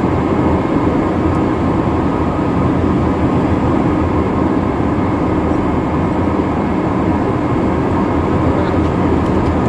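Steady rushing noise inside the cockpit of a Hawker 850XP business jet in flight: airflow and turbofan engine noise blended together, even throughout.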